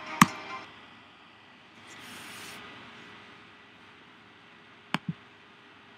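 Computer mouse clicks over faint hiss: one sharp click just after the start, then two quick clicks close together about five seconds in.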